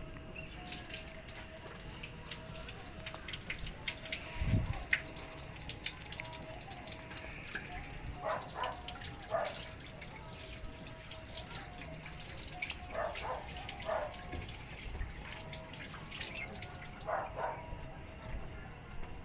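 Chicken wings frying in oil and juices in a wok, with a steady sizzle and crackle. There is a single dull bump about four and a half seconds in.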